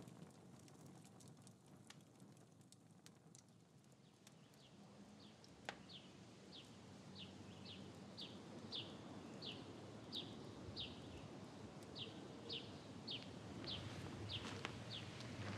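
A bird calling faintly over a low outdoor hush: from about five seconds in, a long run of short, high, falling notes, about two a second.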